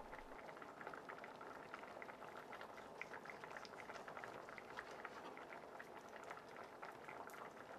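Faint, irregular soft ticking and crackle of a knife slicing cooked turkey meat against a plastic cutting board.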